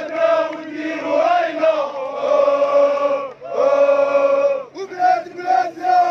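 A large crowd of male protesters chanting a slogan in unison, in long sung phrases with short breaks between them.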